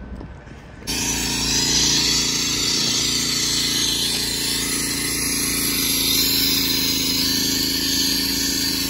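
Gas-powered concrete cut-off saw running at high speed, coming in suddenly loud about a second in and holding a steady, high-pitched engine whine.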